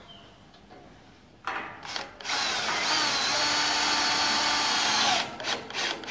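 Power drill running: a short burst, then a steady whine for about three seconds before it stops, typical of driving in small screws.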